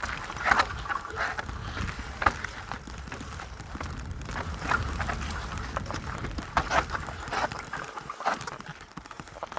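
Canyon Strive mountain bike rattling down a rough, rocky trail: a fast irregular run of knocks and clatters from tyres, chain and frame over rocks, over a steady low rumble of wind on the helmet or chest-mounted action camera.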